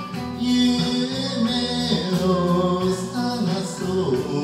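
A man singing an enka song into a karaoke microphone over a recorded backing track.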